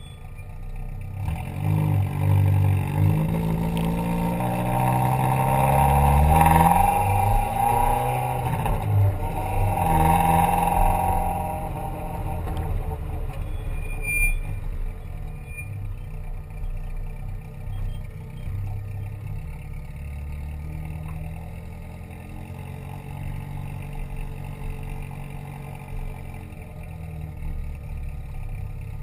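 A car engine revving, its pitch rising and falling several times over the first ten seconds or so, then running more steadily at a lower pitch.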